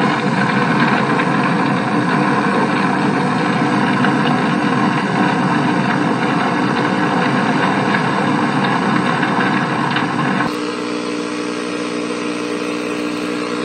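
A loud, steady motor-like running noise. About ten and a half seconds in, it drops to a quieter, steadier buzzing hum.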